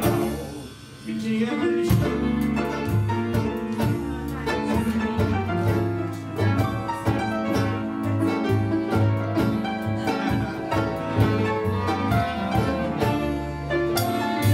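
Small acoustic band playing an instrumental tango passage: clarinet, violin, double bass and guitar. The music drops away briefly about a second in, then the full band comes back in with the bass marking the beat.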